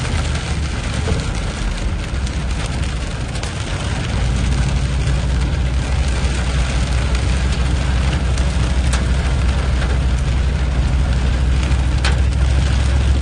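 Vehicle engine running with a steady low hum, heard from inside the cabin, over a constant hiss of rain and tyres on the waterlogged road. The engine grows louder about four seconds in, and a couple of sharp ticks come near the end.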